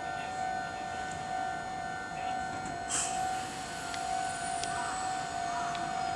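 A steady electronic warning tone ringing on the platform, with a higher tone that pulses about twice a second until about halfway through, when a single sharp clack is heard and the pulsing stops; the lower tone carries on.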